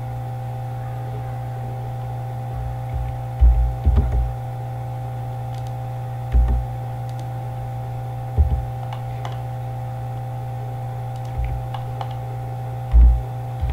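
Steady electrical mains hum with scattered computer mouse clicks and several dull low thumps, the loudest about three and a half seconds in and near the end.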